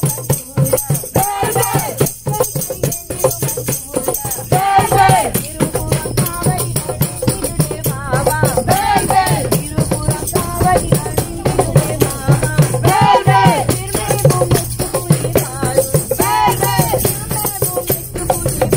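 Procession music: a hand drum and jingling hand percussion beat a steady, busy rhythm, while voices sing short devotional phrases that recur every few seconds.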